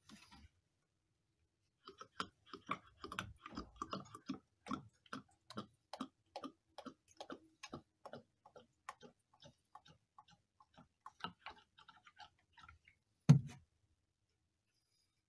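Engine oil glugging out of a 4-litre plastic canister into a filler funnel, in a run of irregular gulps about two to three a second as air bubbles back into the canister. A single loud knock comes near the end.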